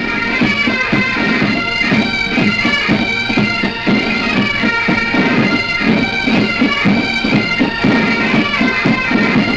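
Military pipe band playing a march: Highland bagpipes with their steady drones under the melody, over a regular beat of drums.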